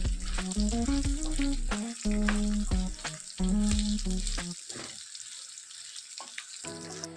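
Dates frying in ghee in a pan with a steady sizzle and several sharp spatula clicks against the pan. Background music with a melody plays over it and stops for about two seconds near the end, leaving the sizzle.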